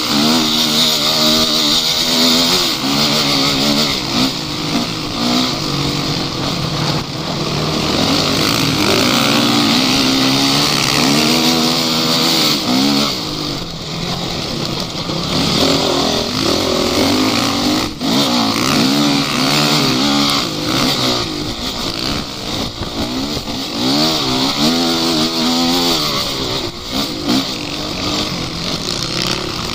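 Off-road vehicle engine revving, its pitch rising and falling in repeated surges about every second or two, over a steady hiss.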